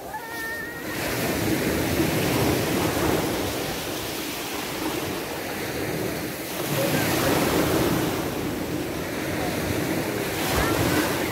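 Sea surf washing onto a sandy shore, the noise swelling and easing twice as waves come in.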